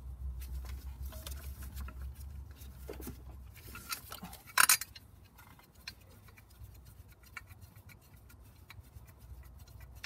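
Small clicks and rustles of a hand fitting a bolt by feel under an engine's A/C compressor bracket, with one sharp click, the loudest sound, about four and a half seconds in.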